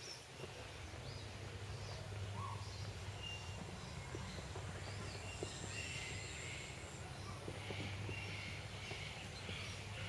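Assorted birds chirping and calling in short, scattered notes over a low steady hum.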